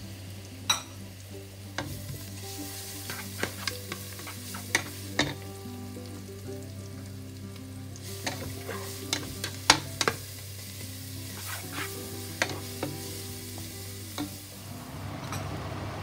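Sliced onions and minced garlic sizzling in oil in a nonstick pot as they are stirred with a wooden spoon. The spoon knocks sharply against the pot many times, most often about halfway through.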